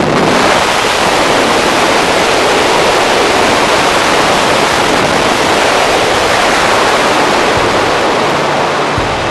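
Steady loud rush of wind on the camera microphone: the airstream at the open door of the jump plane and then in freefall.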